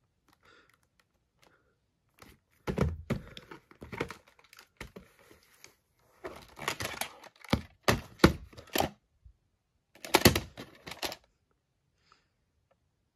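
Plastic VHS clamshell case being handled and opened, and the cassette pulled out. Three clusters of clicks and knocks: about two seconds in, in the middle, and again near the end.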